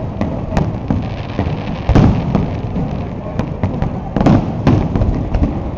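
Aerial firework shells bursting in quick succession: sharp booms every half second to a second over a continuous low rumble, the loudest about two seconds in and again past four seconds.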